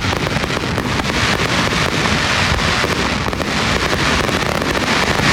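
Fireworks crackling in a dense barrage, many small pops running together into a continuous loud crackle.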